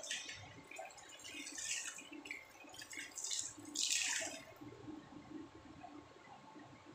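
Water splashing in a plastic bucket as a wet cloth is dipped and wrung out. Several short splashes, the loudest about four seconds in as the wrung-out water pours back into the bucket.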